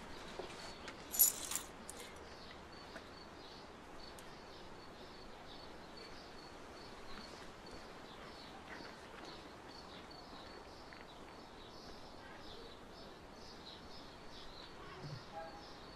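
Outdoor garden ambience of small birds chirping, many short high chirps throughout. A short jangle of keys a little over a second in.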